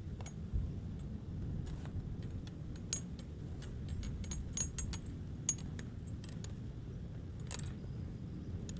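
Scattered small clicks and clinks of hard objects being handled, some with a brief high ring, over a steady low rumble.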